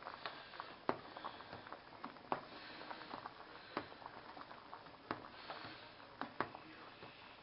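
Pasta water boiling in a steel pot: a faint bubbling hiss with scattered, irregular sharp pops and ticks.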